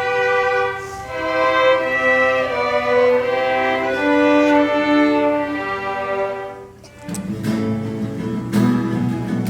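A violin playing a melody of held notes, which ends about two-thirds of the way through; about 7 seconds in, an acoustic guitar starts strumming.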